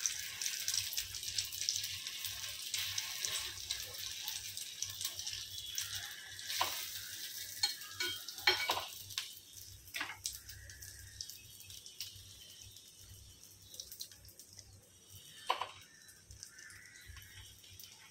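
Beaten egg with chopped onion sizzling in oil on a flat iron griddle (tawa): a crackling hiss that is strongest in the first half and fades later. A few light knocks are scattered through it.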